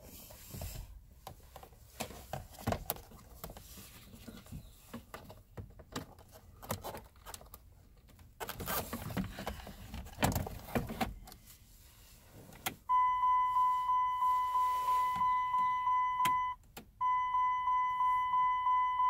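Scattered light clicks and knocks of the plastic instrument cluster being handled and pressed into the dash. About thirteen seconds in, the van's electronic warning chime starts with the ignition switched on: a steady high beep pulsing a few times a second, which stops for a moment and then starts again.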